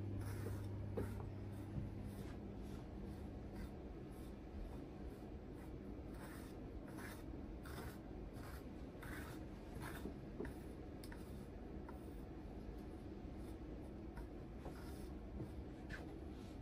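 A wide-tooth comb drawn again and again through wet, permed hair in short, soft, scratchy strokes, coming irregularly.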